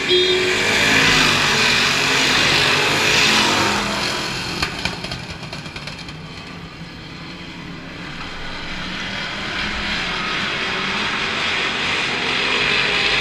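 A pack of dirt-track stock cars racing past, their engines loud in the first few seconds as they go by, fading to a low about six seconds in, and building again toward the end as the field comes back around.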